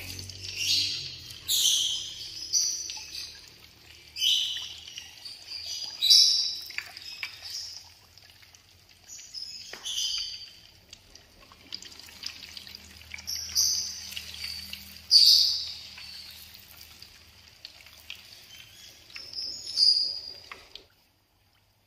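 Whole dates deep-frying in a pan of hot oil, a soft bubbling sizzle, under short high bird chirps that come every second or two and are the loudest sound. Everything cuts off suddenly near the end.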